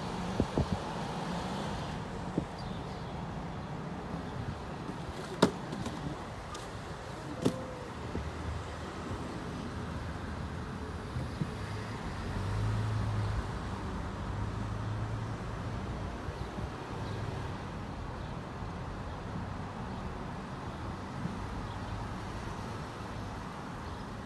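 Car driving slowly, a steady low engine and road rumble heard from inside the cabin, with a couple of sharp clicks in the first half.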